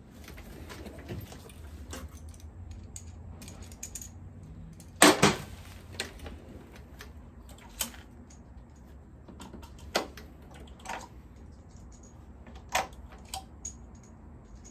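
Scattered light metallic clicks and clinks of hand tools and bolts being handled, with a louder double knock about five seconds in.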